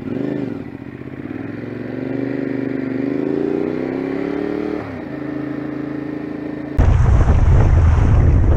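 Motorcycle engine pulling away, its pitch rising steadily for about four seconds, dropping at a gear change and then holding steady. Near the end it cuts abruptly to loud wind rumble on the microphone.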